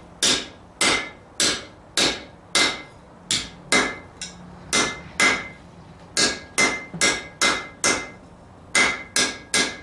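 Hand hammer striking hot mild steel on a steel anvil, steady blows about two a second with two short pauses, each blow leaving a brief metallic ring from the anvil. This is forging a scroll, bending it back and centering it over the top.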